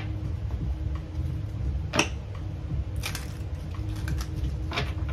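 Tarot cards being shuffled and handled: a few crisp card clicks and short riffles, one about two seconds in, a cluster around three seconds and another near the end, over a steady low hum.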